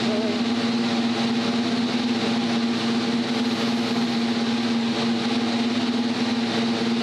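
Ferrari SF25 Formula 1 car's turbocharged V6 hybrid engine idling at a steady, high idle, holding one constant pitch.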